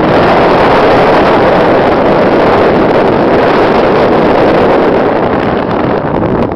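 Loud steady rush of wind and road noise inside a moving vehicle, with air buffeting the microphone and no distinct engine note; it eases slightly near the end.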